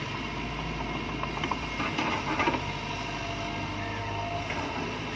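Diesel engine of a construction machine running steadily, with a few light clanks about two seconds in.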